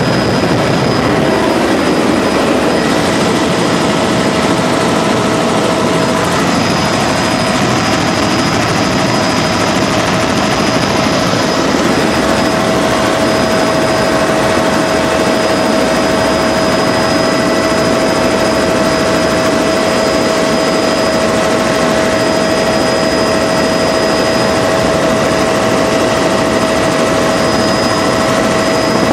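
Helicopter engine and rotor noise heard from inside the cabin in flight: a loud, steady din with constant whining tones over it.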